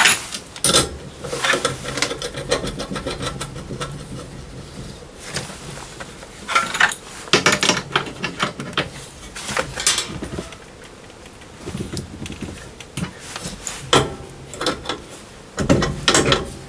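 A wrench clinking and scraping against steel gas pipe fittings as a threaded connection is tightened, in irregular bursts of metal clicks and rubbing.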